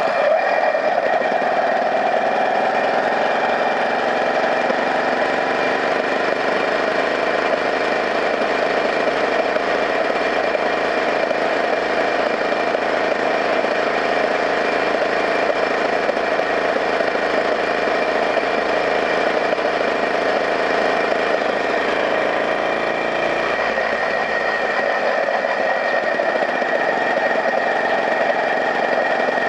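Engine of a moving vehicle running steadily at cruising speed, a continuous drone with slight rises and falls in pitch.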